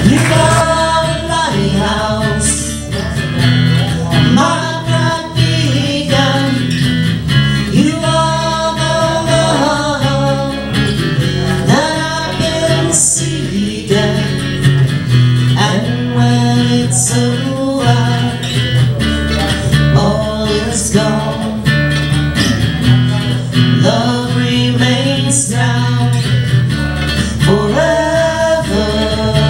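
Live acoustic band playing: a strummed acoustic guitar over steady bass notes, with a voice singing.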